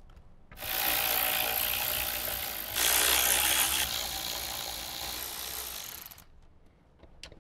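Cordless electric ratchet with a 9/32 socket running for about five and a half seconds, backing out the screws that hold a factory car radio. It gets louder for about a second around three seconds in.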